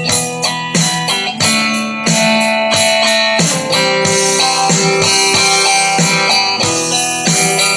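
Guitar strummed through a Line 6 Spider V30 amplifier set to an acoustic-guitar sound, playing chords. Quick strokes in the first second or so give way to longer ringing chords, and the strumming picks up again near the end.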